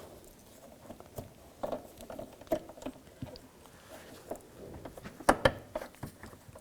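Scattered small clicks and taps of plastic and metal parts as the hood latch and its release lever are pushed and snapped into place, with a sharper pair of clicks about five seconds in.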